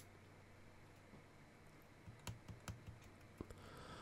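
A handful of faint clicks from the Rotel RVC-240 CB radio's rotary on/off volume switch being turned, starting about two seconds in. The radio stays dead, with no hiss from its speaker: the on/off switch contacts are open circuit.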